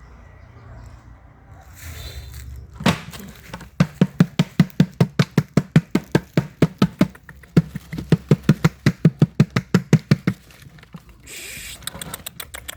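A single hard knock, then a fast run of repeated knocking strikes, about five a second for some six seconds with a brief break midway.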